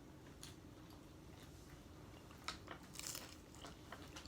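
Faint crunching and chewing of tortilla chips, a few scattered crunches with the loudest about two and a half to three seconds in.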